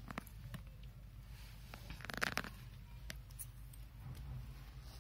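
Power-supply cables and plastic connectors being handled: a few light clicks and ticks, with a brief rustle of cables about two seconds in.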